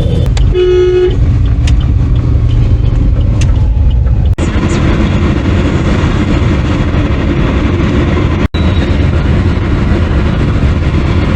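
Road traffic running with a steady low rumble, and a car horn honking once, briefly, about half a second in.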